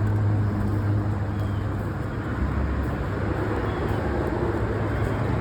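Steady low hum of an idling car engine, with faint voices in the background.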